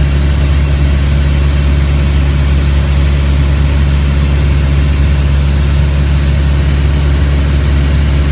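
A light single-engine airplane's piston engine and propeller running steadily in flight, heard inside the cabin as a loud, even drone with a strong low hum.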